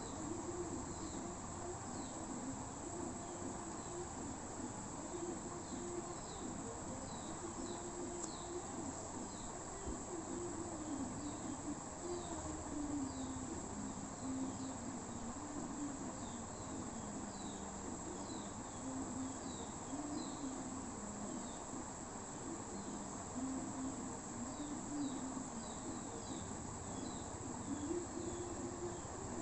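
Insects chirping steadily: a constant high trill with short chirps repeating over it, and a low hum beneath that wavers slowly up and down in pitch.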